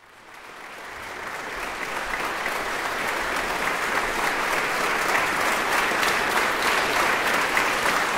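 Audience applause: dense, steady clapping that rises from silence over the first couple of seconds.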